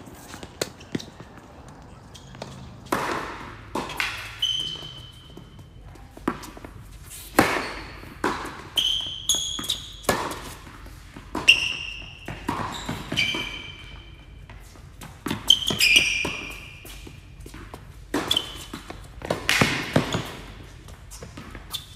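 Tennis rally sounds: sharp pops of racket strings striking the ball and the ball bouncing on the court, every second or so. Short high-pitched squeaks of shoes on the court come between the shots.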